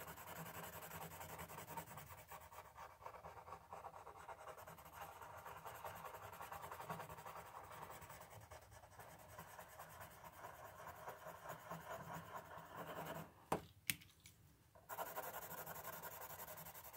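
Faint scratching of mechanical pencil lead on paper in quick short strokes, shading in a drawn eye's pupil. The scratching stops for a moment about three-quarters of the way through, with a couple of small clicks, then starts again.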